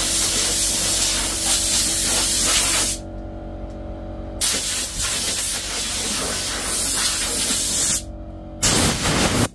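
Loud, steady hissing noise that cuts out twice for a second or so, over a steady low hum.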